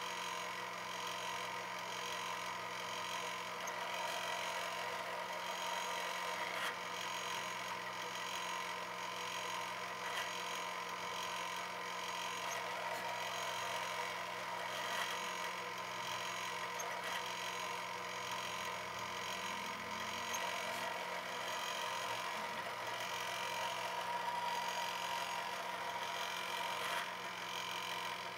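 Drill press running steadily, its bit drilling small holes into a metal block, heard as a continuous hum and whine.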